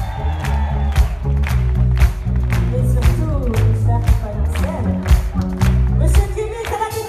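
Pop-soul band playing live, with a heavy bass line and a steady drum beat of about two hits a second, and a woman's lead vocal singing in places.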